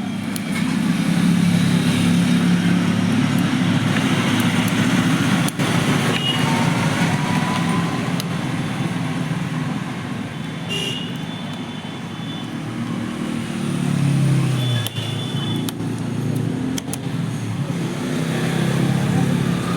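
Road traffic: motor vehicles running and passing, with a low engine pitch dropping away about fourteen seconds in, and a few sharp clicks.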